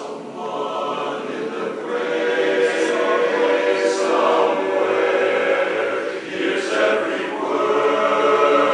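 Men's barbershop chorus singing a cappella in close harmony, long held chords fading in at the start and growing steadily louder.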